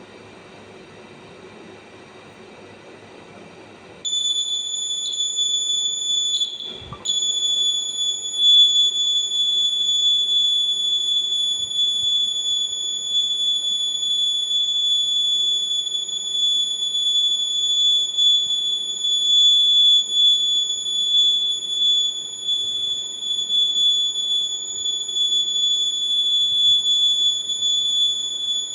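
An electronic buzzer sounding one continuous high-pitched tone that starts abruptly about four seconds in, cuts out for a moment a few seconds later, then holds steady; before it starts, only a faint hiss.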